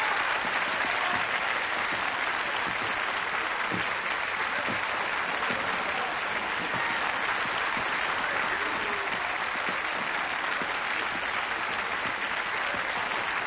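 A hall full of banquet guests applauding, a steady, even clapping that carries on without a break.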